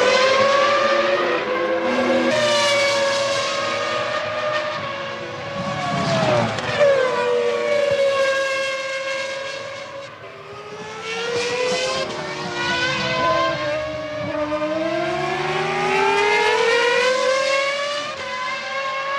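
Formula One cars' V10 engines at high revs during a race, several engine notes overlapping. Their pitch climbs and drops repeatedly with gear changes, braking and cars passing.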